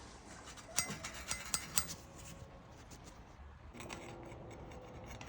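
Five or six sharp clicks in quick succession about a second in, like small hard objects being handled, followed by faint rubbing noise.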